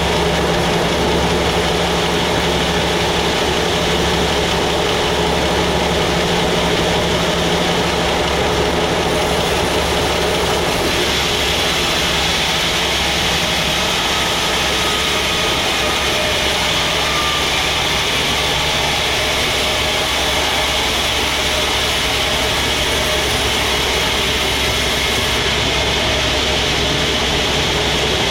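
Sawmill machinery running steadily: a loud, unbroken mechanical drone with a low hum, growing a little brighter and harsher about eleven seconds in.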